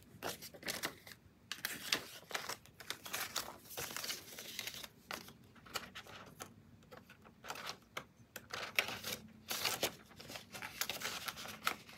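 Paper banknotes rustling and crinkling in the hands as a stack of cash is handled and slid into a plastic envelope in a ring binder: irregular dry rustles with small clicks.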